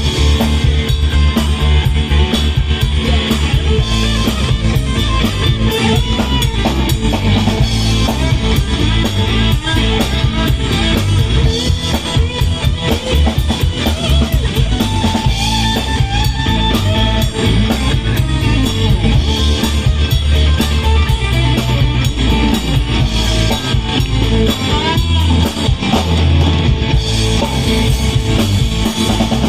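Instrumental break of a rock song without vocals, with guitar and a drum kit playing.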